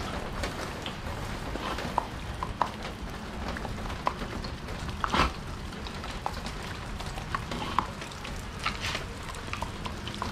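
Steady patter of rain with scattered sharp clicks, the loudest about halfway through, as a Belgian Malinois snaps its jaws at the falling raindrops.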